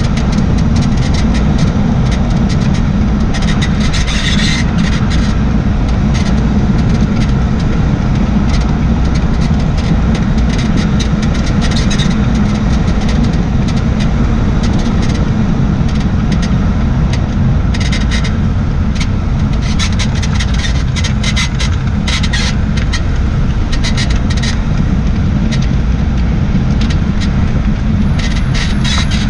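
2004 Jaguar XJ6 (X350) on the move with a steady road-and-tyre rumble, over which short creaks and squeaks come in clusters from the rear suspension, like a broken bed. The owner suspects the rear air strut, replaced two weeks earlier, or a failing bushing.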